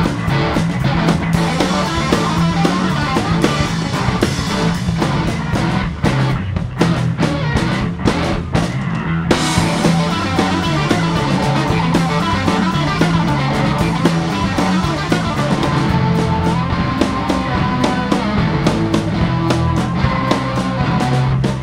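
Live rock band playing a fast instrumental prog-rock piece, with electric guitar and drum kit.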